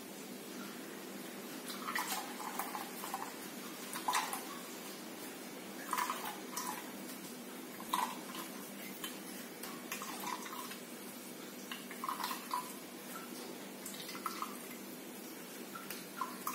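Coconut milk being squeezed by hand out of ground coconut in a plastic strainer, running and dripping into a glass bowl in short splashy spells about every two seconds.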